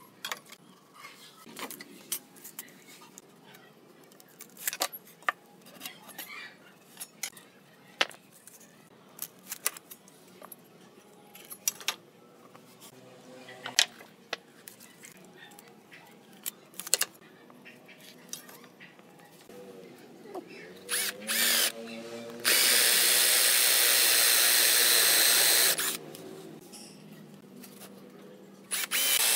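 Scattered taps and clicks of tools and wood being handled, then a 28V cordless drill revs up in a few short whines and bores steadily into a pallet-wood block for about three seconds. It stops, then starts boring again at the very end.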